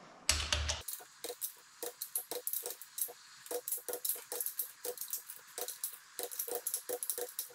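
Ratcheting torque wrench clicking in quick, uneven runs as it is swung back and forth over cylinder-head nuts, checking that they still hold their final torque. A dull knock sounds about a third of a second in.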